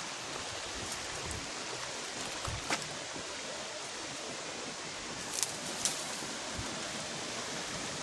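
Steady rush of a waterfall and the stream running over boulders, with a few short sharp clicks.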